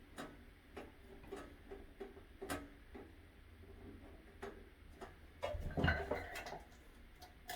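Scattered small clicks and taps of hands working the wires and parts of a light fixture during wiring, with a louder rustling knock about six seconds in.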